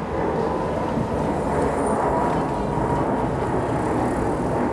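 Boeing 747-8F freighter passing overhead, its four GEnx-2B turbofan engines giving a steady jet rumble with a thin whine on top.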